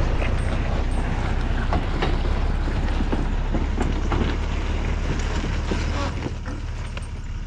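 A motor vehicle's engine running steadily, with wind buffeting the microphone; it grows a little quieter in the last second or so.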